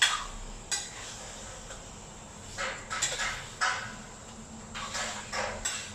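A ladle scraping and knocking in a pan as duck pieces in soy sauce are stirred: a few separate short scrapes spread over several seconds.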